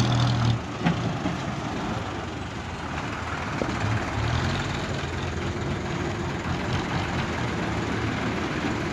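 Diesel bus engine running as the bus moves slowly past close by, its low hum growing stronger about four seconds in. A few light knocks near the start.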